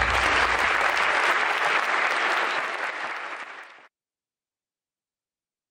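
Audience applauding, fading out about three seconds in and cutting off to silence a little later.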